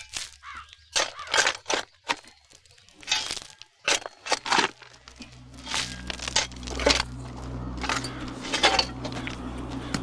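A spade digging into dry, stony soil: a run of irregular scraping, crunching strikes of the blade into earth and stones. A low steady hum comes in about halfway through.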